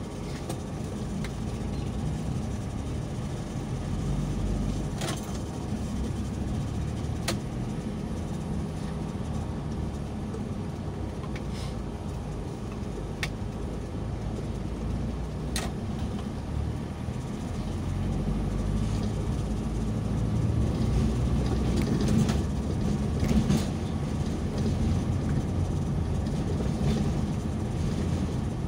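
Steady low engine and road rumble heard from inside a moving vehicle's cabin, growing a little louder in the second half, with a few scattered sharp clicks.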